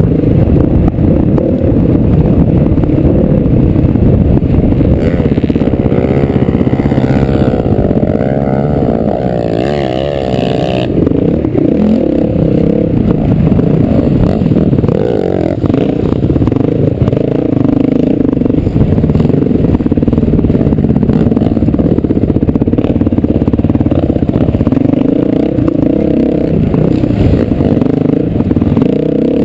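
Dirt bike engine running hard, heard close from the rider's helmet camera. Its pitch rises and falls quickly several times about halfway through as the throttle is worked.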